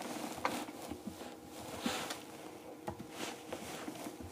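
Soft, irregular clicking of laptop keyboard keys being typed on, over a faint steady hum.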